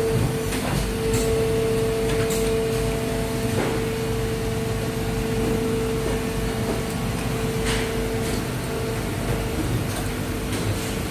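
Plastic injection-moulding machinery running: a steady machine hum with a held whining tone, and a few sharp clicks and knocks scattered through, the strongest about three and a half and seven and a half seconds in.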